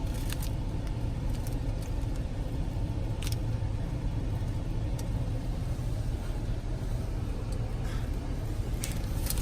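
Steady low rumble of road and engine noise inside a moving car's cabin, with a few light clicks.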